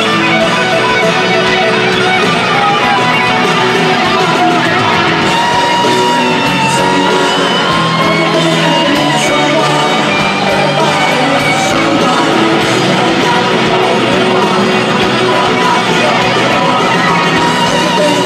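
Live rock band playing through a stadium sound system, led by grand piano with sustained held notes, heard from within the crowd, with voices singing and shouting.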